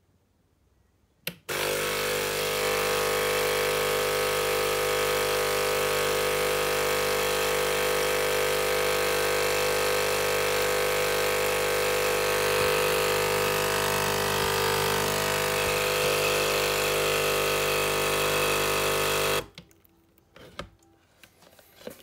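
Sage Nespresso Creatista Plus coffee machine's pump running during descaling: a loud, steady hum over a hiss of running water. It starts with a click about a second in and cuts off suddenly near the end. Water is streaming out where the capsule container should sit, a big internal leak.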